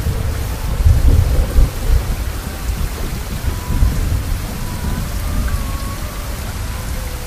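Steady rain with rolling thunder; the low rumble is loudest about one to two seconds in, then settles. Faint held tones sit underneath.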